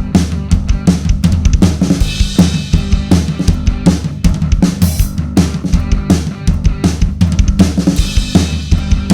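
Drum kit played in a steady groove along with a backing song, kick and snare hits over a bass line, with cymbal crashes about two seconds in and again near the end.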